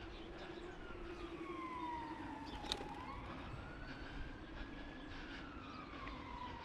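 Emergency vehicle siren wailing: its pitch falls and rises slowly, about one sweep every four seconds.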